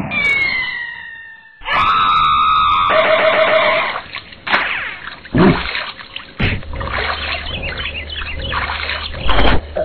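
Cartoon sound effects: a falling whistle in the first second, then a sudden loud shrill effect that turns into a fast rattle, followed by several thumps and watery sloshing.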